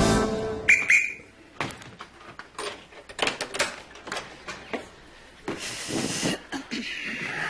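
A music jingle cuts off, and about a second in a referee's whistle gives one short blast, the signal that starts the improvisation. Scattered light knocks and clicks on the stage follow.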